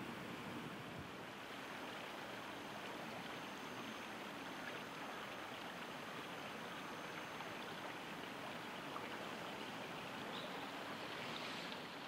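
Small river flowing: a steady, even rush of running water.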